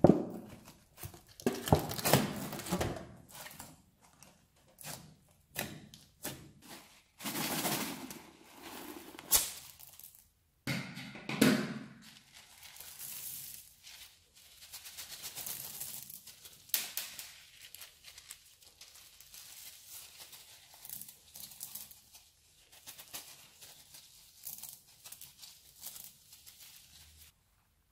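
Hands squeezing, pulling and kneading foam-bead slime (floam), giving irregular crackles, squelches and pops. These are loudest in the first few seconds and again around the middle. Later come quieter rubbery handling sounds as a blue rubber glove is stretched and worked over the slime.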